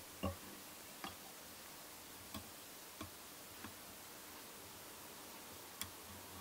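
Faint, irregular light ticks, about six spread over several seconds, from a whip-finish tool and tying thread being worked round the head of a fly in the vise.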